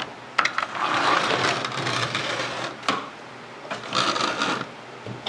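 Hard plastic toy parts being handled and moved: rubbing and scraping with sharp clicks, once near the start and again just before the halfway point, then another short spell of rubbing near the end.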